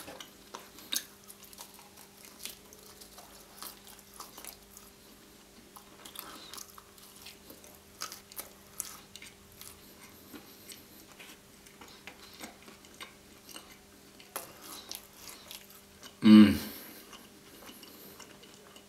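Close-miked chewing of a Nutella, strawberry and marshmallow dessert pizza: many small wet mouth clicks and smacks. About sixteen seconds in comes one short, loud vocal sound from the eater.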